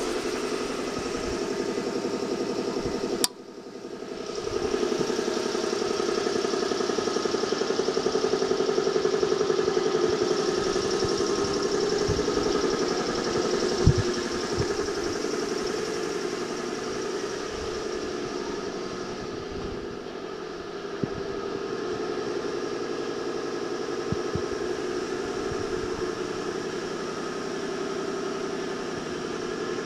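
52-inch ceiling fans running on a broken variable speed control, a steady hum made of several tones. A sharp click about three seconds in; the hum drops away and builds back up over the next couple of seconds.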